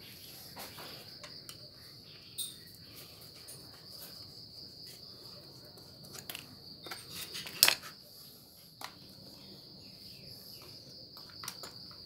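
Scattered sharp plastic clicks and knocks as a brush cutter's plastic engine shroud is handled and fitted over the engine, the sharpest knock a little past halfway and several more near the end. A steady high cricket trill runs underneath.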